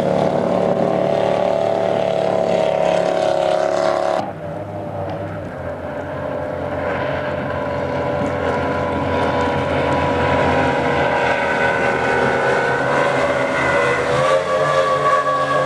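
Powerboat engines running at high speed on open water: a steady, pitched engine drone that cuts off abruptly about four seconds in. A quieter drone follows and builds steadily as a twin-outboard powerboat closes in, loudest near the end with a slight wavering in pitch.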